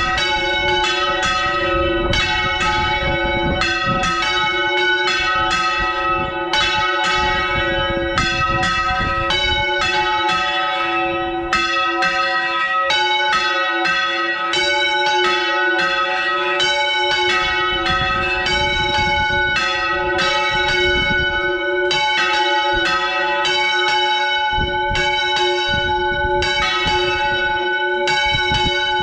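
Church bells swung full circle on wooden yokes in the Valencian volteo style, heard from inside the belfry: loud clangs of several bells, about two strokes a second, over a continuous ringing hum.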